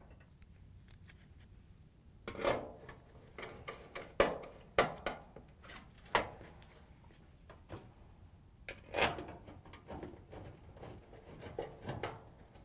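Scattered light knocks, clicks and scrapes of metal on metal as a dryer's steel front panel is handled into place and a 1/4-inch nut driver turns hex-head screws into it.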